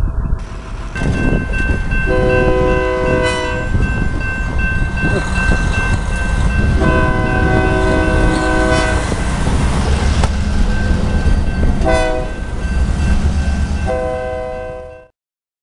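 Freight locomotive's air horn blowing the grade-crossing signal: long, long, short, long. Under it a crossing-signal bell rings steadily and a low diesel rumble runs. The sound cuts off suddenly near the end.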